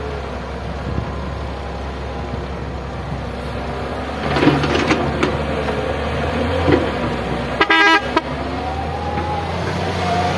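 Excavator engine running steadily, with a hydraulic whine that slowly rises and falls in pitch and a few clanks around the middle. A vehicle horn sounds once, about half a second long, a little after seven seconds in.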